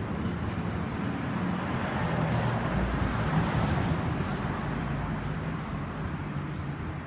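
Motor vehicle running, with a steady mix of engine hum and road noise.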